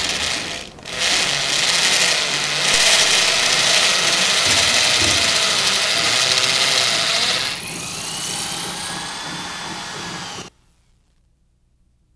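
Electric rotary hammer drill boring an anchor-bolt hole into concrete, a steady dense grinding rattle that briefly drops out about a second in. Past the middle it eases to a quieter level with a gliding motor whine, then cuts off abruptly.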